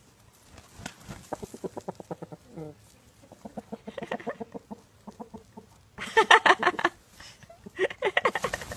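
Chickens clucking in quick runs of short notes, with louder, faster clucking about six seconds in and again near the end.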